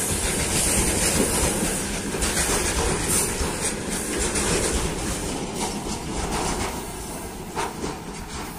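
Covered hopper wagons of a freight train rolling past at close range, wheels rumbling on the rails with irregular clicks over the joints. The noise fades over the last few seconds as the tail of the train moves away.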